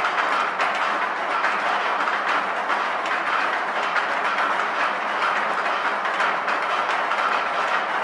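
Live experimental noise soundtrack for a dance piece: a dense, steady clattering texture of fine rattles and clicks, with no clear melody or beat.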